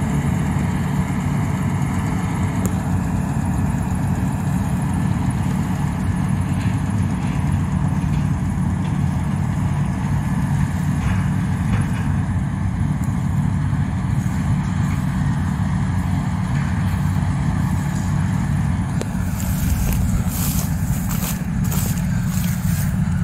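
Combine harvester's diesel engine running steadily in a low, even drone while it harvests paddy. A burst of crackling comes in near the end.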